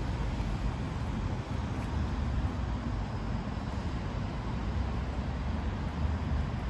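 Steady city background noise: a constant low rumble and hiss of distant traffic, with no distinct events standing out.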